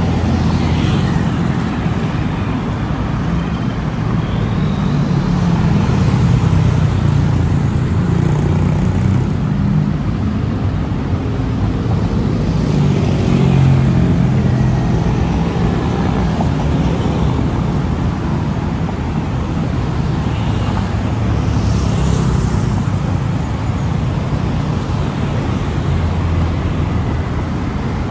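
Steady road traffic, a continuous low rumble of passing cars and motorbikes.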